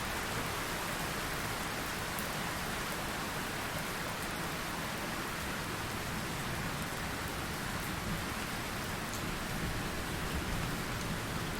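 Steady rain falling, an even hiss with the odd single drop ticking out sharper now and then.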